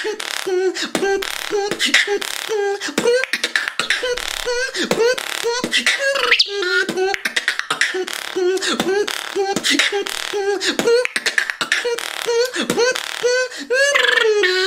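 Beatboxing: a fast routine of sharp mouth-made percussive hits and clicks, woven with a voiced pitched line that keeps sliding up and down.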